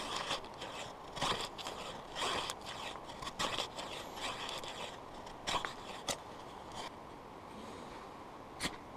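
Knife blade scraping against a bundle of dry grass stalks in a series of short strokes. The strokes come thick in the first few seconds and grow sparse after about six seconds.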